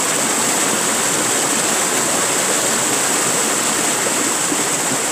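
Small cascades of a rocky mountain stream pouring over boulders close by: a steady, loud rush of water.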